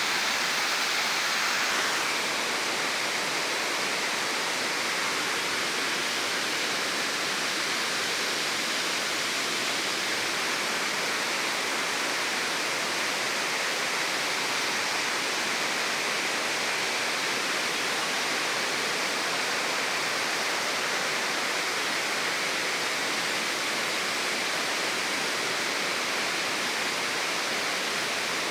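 Waterfall pouring, a steady unbroken rush of falling water, a little louder in the first two seconds.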